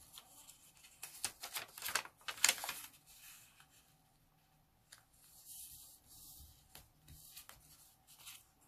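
Colour origami paper rustling and crinkling as it is folded in half and the crease is pressed flat by the fingers. A run of sharp crackles comes in the first few seconds, then softer rustles.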